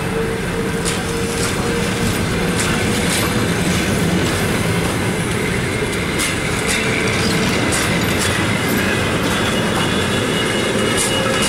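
Russian passenger train coaches rolling past at low speed as the train pulls out, a dense rumble of wheels on rails with irregular clacks over the rail joints. A thin steady squeal runs through the first few seconds and comes back near the end.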